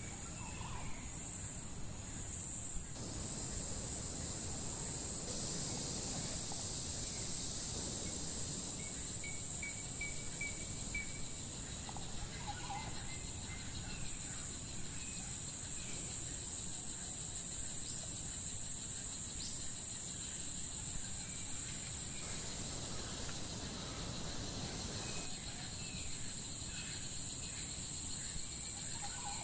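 Rainforest insects keeping up a steady high-pitched drone, with scattered short bird chirps over a low rumble of background noise. The ambience changes abruptly a few times.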